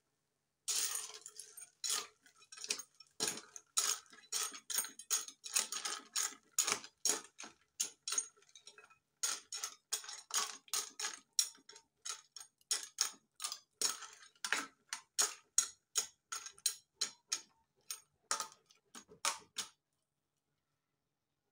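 Long metal ladle stirring in a large metal cooking pot, a rapid, uneven run of clinks and scrapes against the pot wall and its contents, several a second; it stops near the end.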